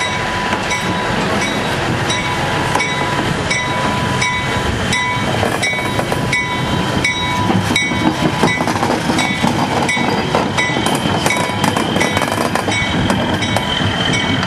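Diesel switcher locomotive running slowly past close by, its engine rumbling, while its bell rings in an even beat of roughly one stroke every three-quarters of a second. A steady high squeal comes in near the end.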